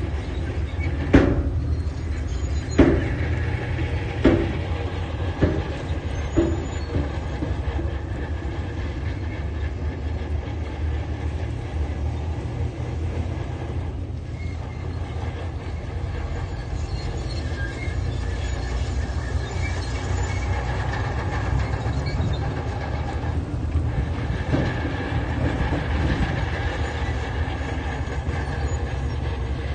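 Diesel engine of a tracked earthmoving machine running steadily under load, with five sharp clanks in the first several seconds, about one every second or so.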